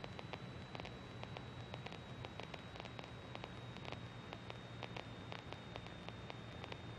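Faint hiss and crackling static on the aircraft's radio and intercom audio feed between transmissions, over a steady high-pitched tone and a low hum.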